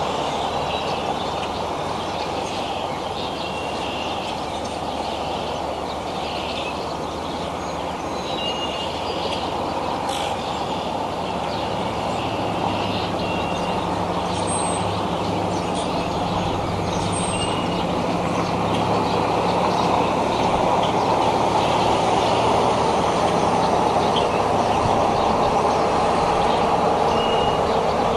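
Steady outdoor rushing noise, growing louder in the second half, with scattered short high chirps of small birds.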